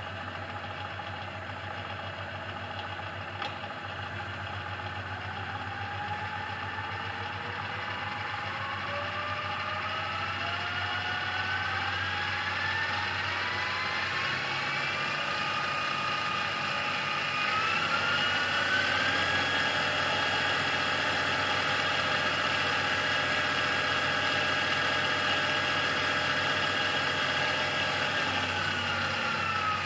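Machine's variable-speed belt drive (variator) and gearbox running with the variator belts freshly adjusted and the gearbox without oil: a mechanical whine climbs steadily in pitch and loudness as the speed is wound up over the first half, holds at a steady high speed, and starts dropping back just before the end, over a steady low hum. The rattle is much reduced after the belt adjustment.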